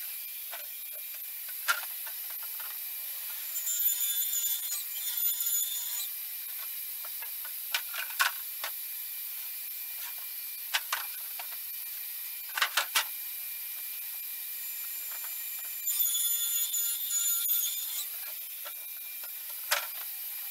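Table saw running steadily while maple veneer plywood sheets are ripped to width, the cut growing louder and rougher twice as a sheet passes through the blade. Between the cuts come a handful of sharp knocks as the long plywood pieces are handled on the saw table.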